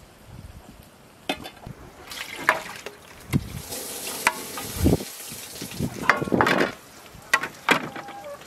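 Rinse water pouring out of a metal basin of washed dill, a splashing hiss starting about two seconds in and lasting about four seconds, as a metal tray held over the basin keeps the dill in. Several sharp clinks and knocks are scattered through it.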